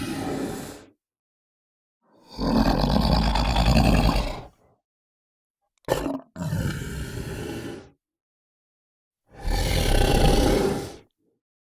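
Monster creature sound effects: a series of separate growling roars, each one to two seconds long, with dead silence between them. The first trails off just after the start, and a short sharp burst comes just before one of the later ones.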